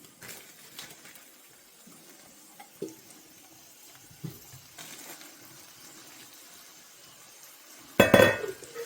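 Kitchen cookware and utensils making a few light clinks, then near the end a sudden loud clatter of metal cookware.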